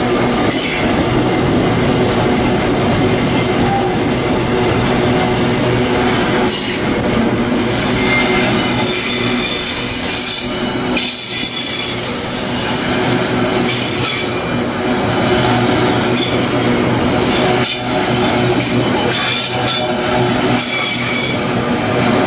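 Freight wagons of a long train rolling past close by: a steady rumble of steel wheels on rail with high-pitched wheel squeal and a few knocks from the wheels over the rail.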